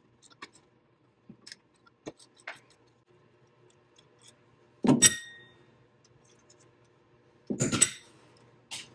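Light metal clicks and taps of a wrench working a 10 mm bolt on the power steering high-pressure line mount. About five seconds in comes a sharp metallic clink that rings briefly, and a second clatter of metal follows near the end.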